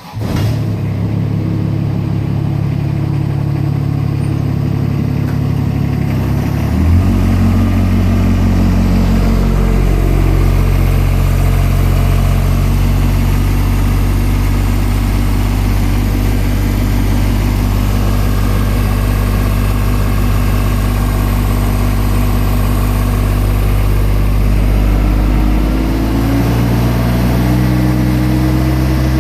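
John Deere X495 garden tractor's engine running steadily. It comes in suddenly, and its note shifts to a different pitch about seven seconds in and again near the end.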